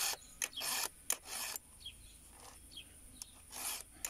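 Chainsaw chain being sharpened by hand with a round file in a file guide: several short rasping file strokes across the cutter teeth, a quick run of them, a pause of about two seconds, then more near the end. The chain is being touched up after it dulled by striking the ground.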